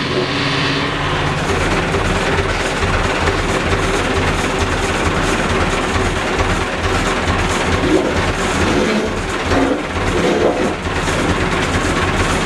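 Massey Ferguson tractor engine running steadily with a rattly clatter while it lifts a log into place.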